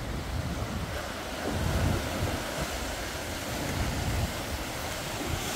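Sea surf washing on a rocky shore, with wind buffeting the microphone; the surf swells up about two seconds in.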